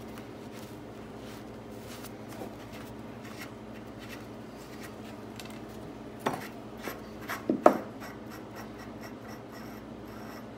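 Light workshop handling noise from a lever arm shock absorber being worked on: soft rubbing and scraping with small clicks, then a few sharper knocks, some with a brief ring, about six to eight seconds in.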